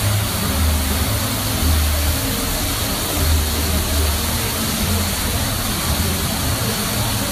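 Artificial waterfall pouring down a terraced rock face: a steady, loud rush of falling water with a low, uneven rumble underneath.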